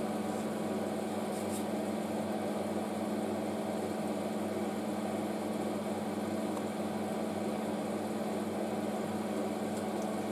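Homemade EDM machine running with its flushing pump on: a steady electrical hum with a faint hiss over it, unchanging throughout.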